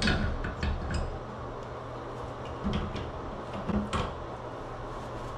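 A wrench clicking and tapping on the metal compression nut of an old shut-off valve on a copper water stub-out as it is worked loose, a few scattered light clicks with the sharpest about four seconds in, over a steady low hum.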